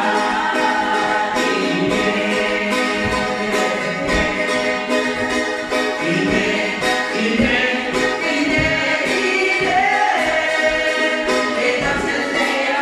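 A small group singing a song in Cook Islands Māori, accompanied by strummed ukuleles keeping a steady rhythm.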